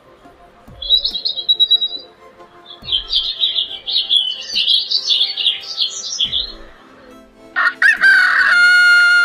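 Small birds chirping in quick, fluttering phrases, then a rooster crows once near the end: a loud, long call held on one pitch.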